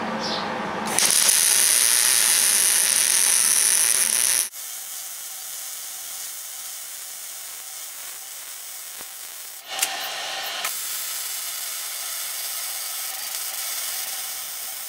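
Wire-feed (MIG) welder arc crackling and hissing as a weld bead is run, starting about a second in. It is loudest for the first few seconds, then carries on more quietly from about four and a half seconds.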